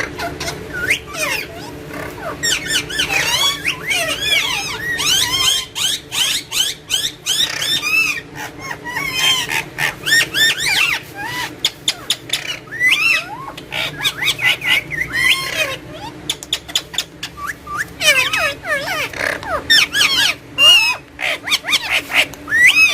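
Green pet parrot making a busy run of squawks, chirps and quick up-and-down whistles mixed with clicks, with a short pause about two-thirds of the way through.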